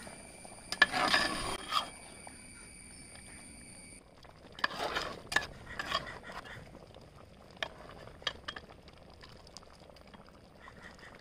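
Metal ladle clinking and scraping against a large metal pot while a coconut-milk fish curry is gently stirred. The clinks come in two short clusters, about a second in and around five seconds in, then a few lone taps.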